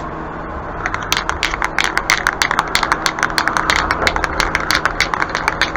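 Aerosol spray-paint can being shaken, its mixing ball rattling in quick irregular clicks that start about a second in.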